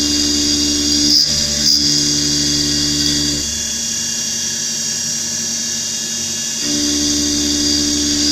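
Milling machine spindle running an end mill through a dynamic (adaptive) milling toolpath: a steady high whine over a lower hum. The cutting noise is louder for the first three seconds or so, drops back in the middle, and rises again near the end, with a couple of brief clicks about a second in.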